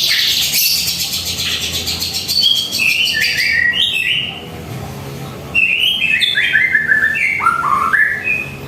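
White-rumped shama (murai batu) singing: a fast run of high repeated notes, then two series of quick notes stepping down in pitch, separated by a short pause about four seconds in.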